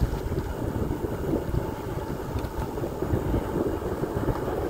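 Wind buffeting the microphone of a camera carried on a moving bicycle, a steady deep rushing noise.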